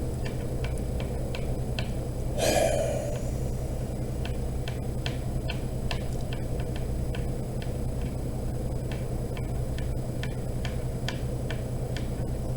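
Steady ticking, about three ticks a second, over a low steady hum, with a short voice-like sound about two and a half seconds in.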